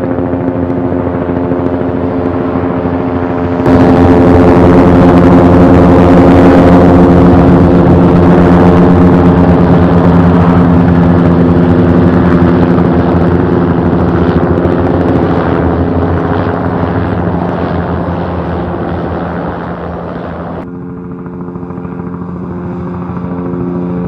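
Helicopter in flight: steady engine tones under a fast, even beating of the rotor blades. It jumps louder about four seconds in, then fades and switches suddenly to a quieter, thinner helicopter sound near the end.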